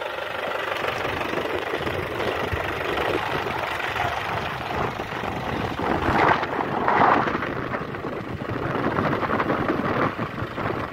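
Tractor engine running steadily while it powers a tractor-mounted hydraulic crane lifting a concrete pole, with two louder rushes of noise about six and seven seconds in.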